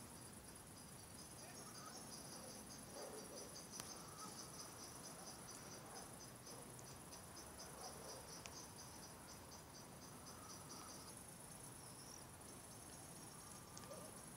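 Faint high-pitched insect chirping: a steady high trill with a rapid pulsing chirp beneath it that stops about eleven seconds in and starts again near the end.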